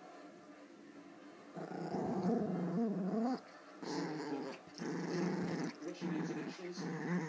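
Adult Pomeranian growling in play during a tug-of-war over a plush toy: several wavering growl bouts, the first starting about one and a half seconds in. It is a play growl, not aggression.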